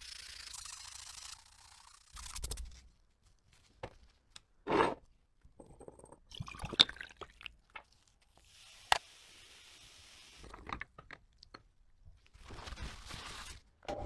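Hand restoration work on a small metal lighter: a short stretch of scraping or rubbing, then scattered sharp clicks, taps and brief rubs as its small metal parts are handled.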